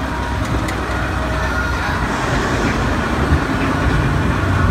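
Log flume boat carried along a chain conveyor through a water channel: a steady low rumble with a mechanical clatter and running water.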